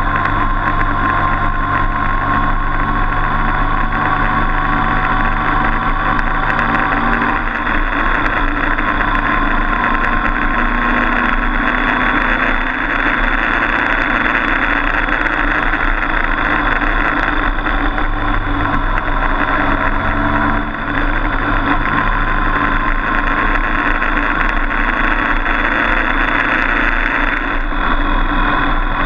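Motorcycle engine running under way on the road, mixed with steady wind rush. The engine note shifts a few times as the throttle changes and dips briefly about twenty seconds in.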